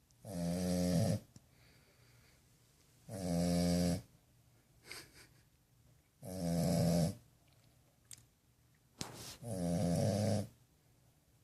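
French bulldog puppy snoring: four loud snores about three seconds apart, each with a pitched, rattling tone, and a couple of small snuffles in between.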